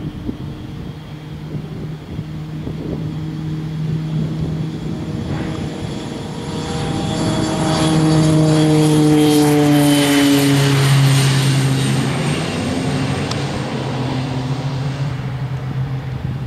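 Twin Pratt & Whitney PT6A turboprop engines of a Raytheon King Air C90A at high power on its takeoff roll: propeller drone and a high turbine whine building as the aircraft approaches. The sound peaks about eight to eleven seconds in as it passes, then drops in pitch and fades as it moves away.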